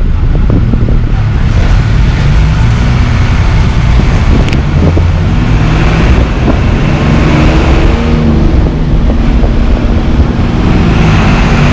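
City bus engine running loud from inside a non-air-conditioned bus, with wind and road noise through the open windows; the engine note climbs as the bus picks up speed in the middle. A single sharp clack about four and a half seconds in.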